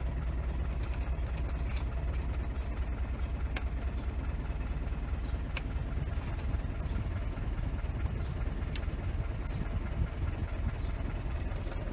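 Isuzu D-Max pickup engine idling steadily, with a few light clicks. The air conditioning is switched on, but its compressor clutch is not engaging and no cold air comes.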